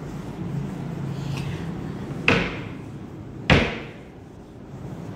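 A whiteboard eraser wiping a whiteboard, with two sharp knocks about a second apart halfway through.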